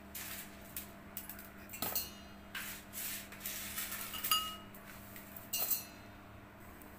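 Scattered light metallic clinks and taps of kitchen utensils on a stainless-steel cooking pot, one a little past the middle ringing briefly.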